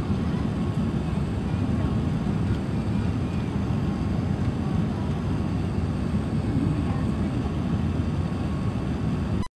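Jet airliner cabin noise on final approach with the flaps extended: a steady, low rumble of engines and rushing air. It cuts off abruptly near the end.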